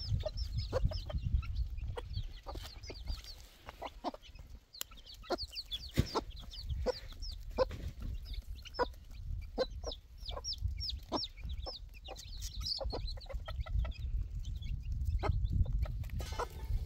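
Chicks peeping in rapid, high, falling chirps, with a hen's short clucks among them.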